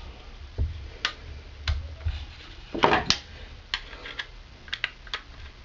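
Truck rear seatbelt retractor being worked by hand, giving about ten irregular light clicks and ticks, the loudest cluster about three seconds in. The retractor no longer reels the belt back by itself, which the owner puts down to a spring that has given up.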